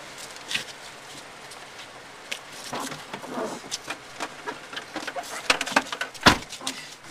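Scattered small knocks and rustles over a faint steady background, with one sharp, loud thump about six seconds in.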